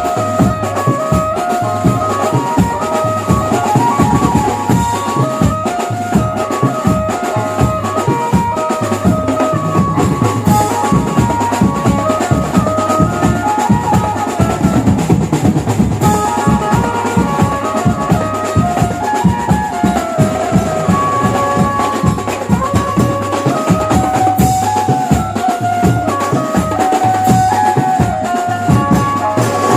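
Background music: a Mumbai banjo-party band track, a stepping melody over fast, steady drumming.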